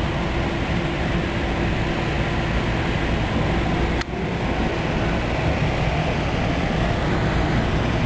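Twilight Express sleeper train running slowly, heard from inside the suite carriage: a steady rolling noise of wheels on rails. There is a brief click about four seconds in.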